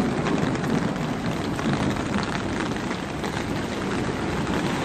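Steady rushing noise of heavy rain and muddy floodwater flowing through a street.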